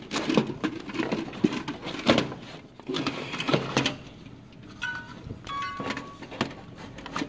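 Toys being handled on a wooden floor: a series of knocks and clatters, with two short electronic beeps from a toy about five and six seconds in.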